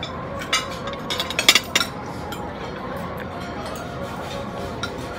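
Metal spoon and fork clinking against plates and bowls: a few sharp clinks, bunched about a second and a half in, over a steady murmur of voices.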